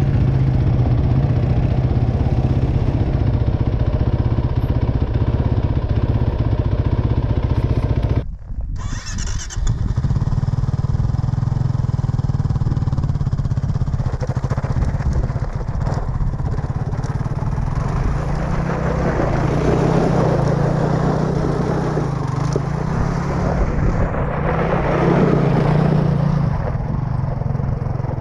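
ATV engine running steadily under riding. The sound drops out abruptly for about a second and a half around eight seconds in, then the engine carries on.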